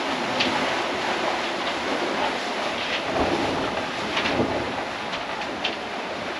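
Steady rush of wind and sea water along a sailing catamaran's hulls running downwind, with a few small wave splashes.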